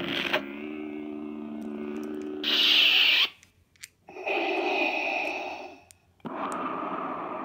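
Crystal Focus CF8 lightsaber soundboard playing through its bass speaker: a steady blade hum, cut off about two and a half seconds in by a loud short swoosh as the blade powers down. After a brief gap the board plays two more sound effects with the blade dark.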